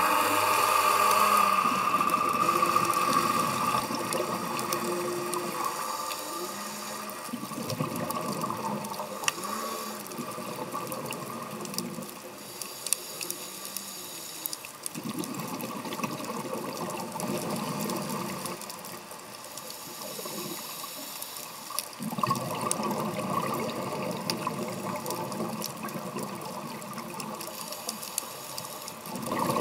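Scuba regulator exhaust bubbles gurgling in swells every several seconds, heard underwater through a camera housing, with scattered faint clicks.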